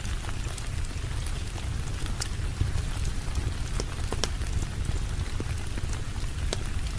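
Steady rain, an even hiss over a deep low rumble, with scattered sharp ticks and pops several times a second.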